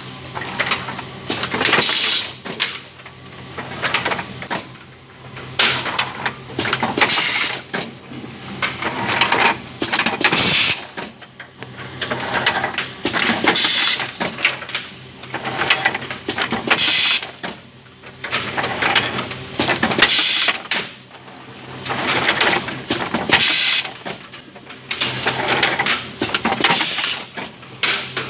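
Rotary perfume-bottle filling machine running: a sharp hiss about every three seconds over a steady low hum, with glass bottles and metal caps clinking and clattering between the hisses.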